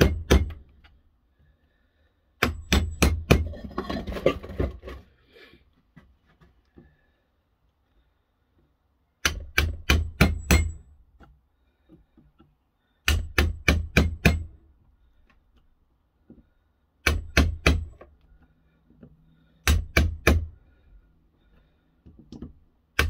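Hammer blows on the end of a large screwdriver that is being driven through the copper windings of a refrigerator compressor's electric motor stator, held in a bench vise. The blows come in quick bursts of three to six sharp strikes, with a few seconds of pause between bursts.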